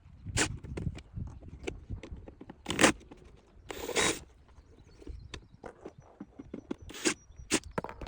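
Hand work on the car's air-conditioning parts: irregular plastic clicks and knocks, with two short scraping rasps about three and four seconds in.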